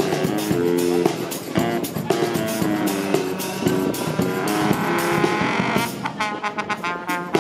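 Music: a melody of held notes changing pitch every fraction of a second, with a fast pulsing passage near the end.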